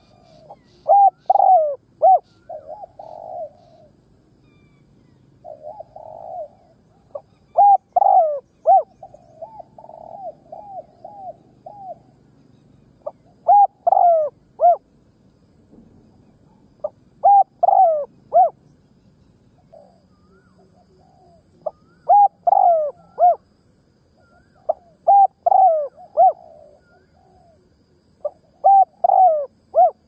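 Spotted dove cooing its territorial call, a short phrase of rolling coos repeated every few seconds, some phrases louder and some softer. It is a caged decoy calling to lure wild spotted doves.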